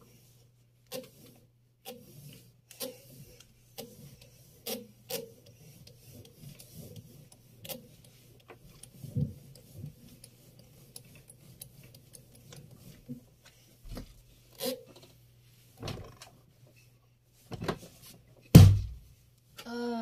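Electrolux washing machine drum being turned by hand at its belt pulley: irregular clicks, scrapes and rubbing knocks, with a loud thump near the end. A faint steady low hum runs underneath.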